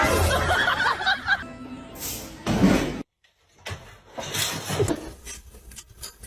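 Music mixed with noisy, busy sound, broken by a short silence about three seconds in.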